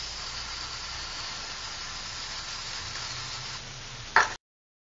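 Aerosol spray can spraying: a steady hiss, with a short, louder burst just before the sound cuts off abruptly near the end.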